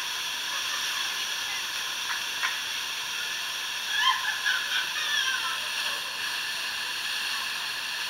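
Steady rushing hiss of a waterfall and water cascading over rock, with a short call about four seconds in.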